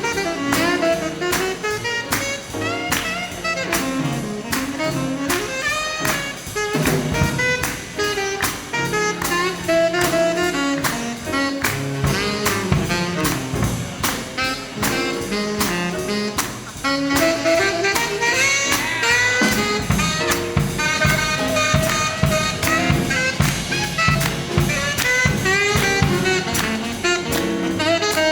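Live big band jazz: a tenor saxophone solo over swinging drums and rhythm section, with the horns playing together near the end.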